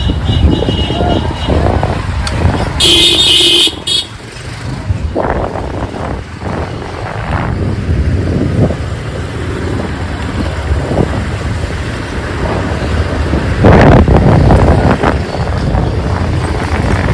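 City street traffic heard from a moving motorcycle: a steady low rumble of engines and road noise, with a vehicle horn sounding briefly about three seconds in and a louder rush near the end.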